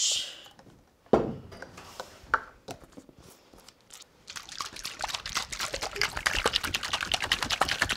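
Vinaigrette shaken hard in a salad dressing shaker: a rapid, rhythmic sloshing rattle through the second half, as the oil is shaken in to emulsify. Before it comes a sharp knock about a second in, then small handling sounds.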